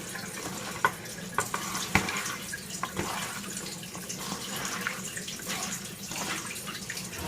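Wet squishing and splashing from raw beef being worked with spice paste and water in a pot, with scattered light clicks.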